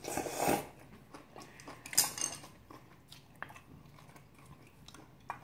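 Eating at the table: a short noisy slurp of ramyeon noodles at the start, then quiet chewing and light clicks of chopsticks and a spoon against stainless-steel bowls, the sharpest clink about two seconds in.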